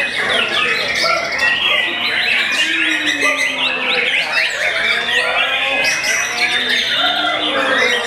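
Caged songbirds singing continuously, white-rumped shama among them: a dense tangle of overlapping rising and falling whistles and chirps.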